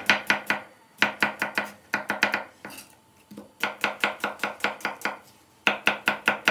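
Kitchen knife dicing an onion on a wooden cutting board: runs of quick, even chops, about seven a second, broken by a few short pauses.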